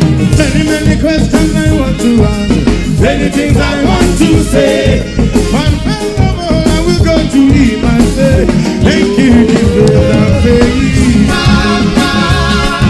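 A live reggae band playing, with a man singing lead into a microphone.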